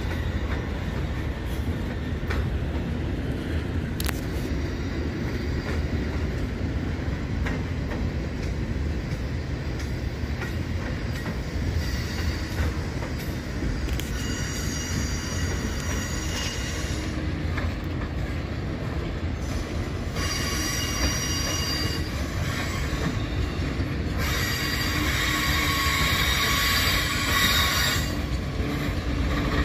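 Loaded freight-train flatcars rolling slowly past: a steady low rumble of steel wheels on rail. High-pitched wheel squeal comes and goes from a little before halfway, loudest near the end.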